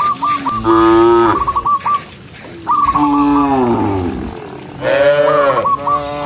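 Cattle mooing: three long, loud moos one after another, with a short rapid trill riding above the first and last.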